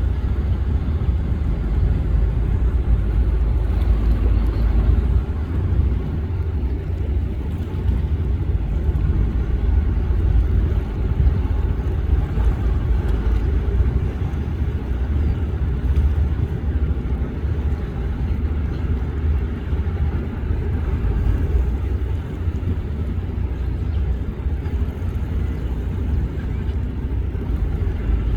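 Express passenger boat under way on its twin Volvo Penta engines: a steady, loud low rumble with rushing noise.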